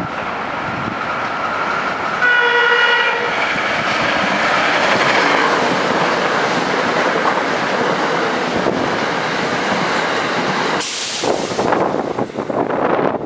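Metro-North electric multiple-unit commuter train sounding one short horn blast about two seconds in, then running past at speed with a steady rush of wheels on rail that breaks off near the end as the last car clears.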